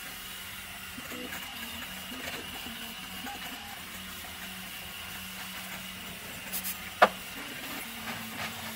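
Steady background hum, with light handling noises from small 3D-printed plastic parts and one sharp click about seven seconds in.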